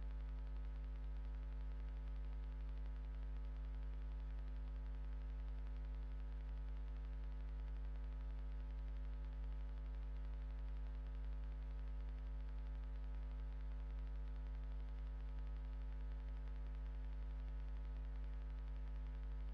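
Steady electrical mains hum with a layer of hiss, the kind picked up on a CCTV recorder's audio channel; nothing else stands out.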